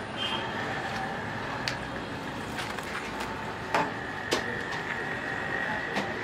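Long kitchen knife slicing through a baked pizza, the blade knocking sharply on the baking tray several times, over a steady hum of street traffic. A faint high steady whine comes in about halfway through.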